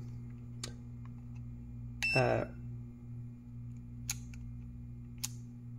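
Three short, sharp clicks of a handheld plastic clamp meter being handled and moved, over a steady low electrical hum, with a brief voiced 'um' about two seconds in.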